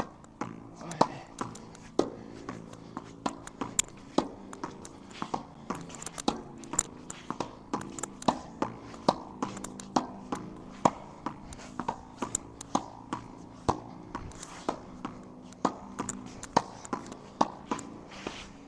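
Tennis ball volleyed against a wall, alternating forehand and backhand: a long rapid run of sharp hits, about two a second, as racket strings and wall strike the ball in turn.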